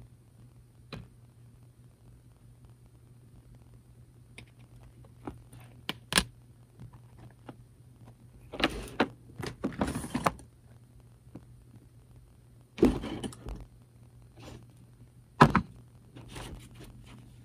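Scattered clicks, taps and knocks of small hobby tools being handled and set down on a workbench, with a loud tap about six seconds in, a busier stretch around nine to ten seconds, and more knocks later. A steady low hum runs underneath.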